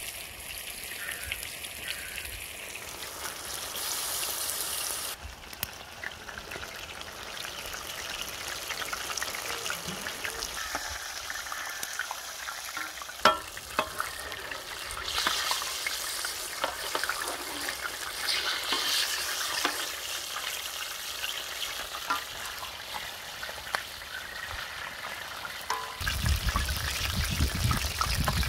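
Whole baby stingrays frying in hot oil, a steady sizzle, with one sharp knock about halfway through.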